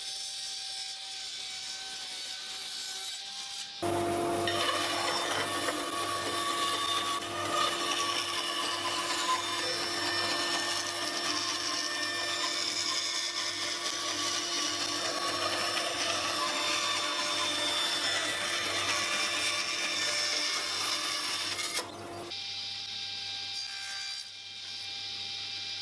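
A power sander running on the face of a glued-up hardwood chessboard, flattening the surface, loud and steady from about four seconds in until it stops near the end. A quieter steady machine hum runs before and after.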